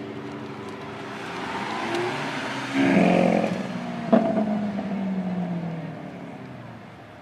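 Sports car engine revving up sharply about three seconds in, with a sharp crack about a second later. Its steady note then drops slowly and fades away.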